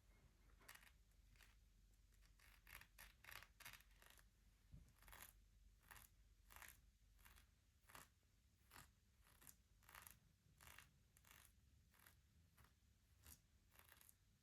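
Quiet, irregular short taps and scratches on the wooden pieces of a shut-the-box game, roughly one or two a second, with a quicker cluster a few seconds in.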